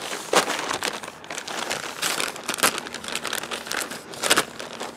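White plastic poly mailer crinkling as a folding knife blade slits it open along the top, with irregular crackles of the plastic throughout.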